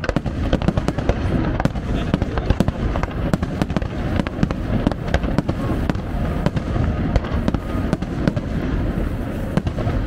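Aerial fireworks shells bursting in quick succession: a dense, continuous run of bangs and crackles.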